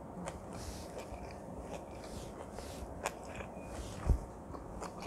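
Close-miked chewing of a full mouthful of food, soft wet mouth sounds with a few small clicks, and one low thump about four seconds in.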